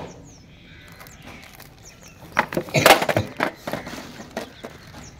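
A plastic-wrapped tin pencil box being handled and set down on concrete: a short cluster of crackles and knocks about two and a half to three and a half seconds in.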